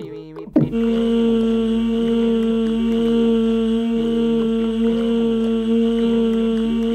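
A steady, level hummed drone made with the mouth as a sound effect, starting about half a second in, with a fainter wavering vocal line underneath it.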